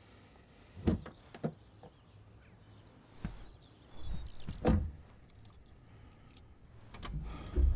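A person getting into a car's passenger seat: scattered clicks and knocks, clothes rustling, and a heavy thud a little before five seconds in. Music starts at the very end.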